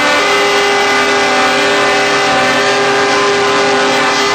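Several truck air horns sounding together as one long, loud chord of steady tones, with individual horns dropping out and coming back in.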